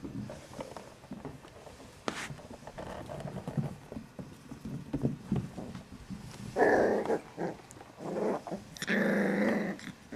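Five-week-old Australian Shepherd puppies play-fighting and growling, with scattered small scuffles and then two longer, louder growls in the second half.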